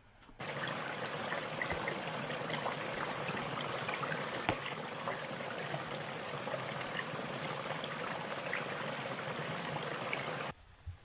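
Flowing water running steadily, with many small splashes, as in a stream or irrigation channel. It cuts in suddenly about half a second in and cuts off just as suddenly near the end.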